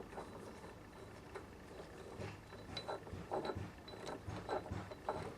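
Quiet, irregular mechanical clicks and knocks from a homemade milling machine's table crank while a new metal handle is fitted to it.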